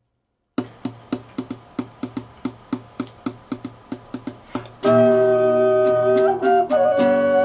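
A fast rhythmic accompaniment of short plucked or tapped strokes, about five a second. About five seconds in, a wooden double ocarina comes in over it with sustained notes in two-part harmony.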